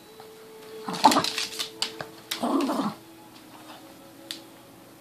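Boston terrier tugging on a rope toy, making two short noisy bursts of sound about a second and two and a half seconds in, with a few sharp clicks.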